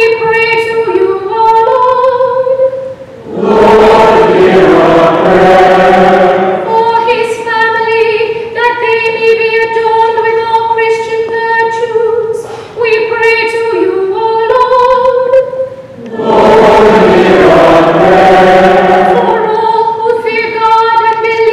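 A woman's solo voice chanting litany petitions on long, steady held notes, answered twice by the whole congregation singing a short response together, each answer lasting about three seconds.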